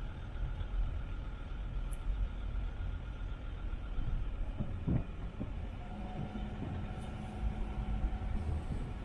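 Car driving at speed across a bridge: a steady low rumble of tyres and road, with a couple of light thumps about five seconds in and a faint steady hum from about six seconds in.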